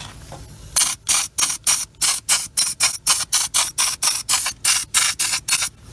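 Aerosol can of black paint spraying in rapid short bursts, about four a second, starting about a second in. The can holds only the dregs of its paint.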